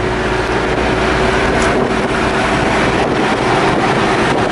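Inside the cab of a 1985 Mitsubishi Mighty Max pickup cruising with its 4D55 turbo diesel: steady engine drone mixed with road and wind noise.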